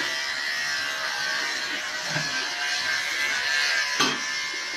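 Electric hair clippers buzzing steadily, with a light knock about four seconds in.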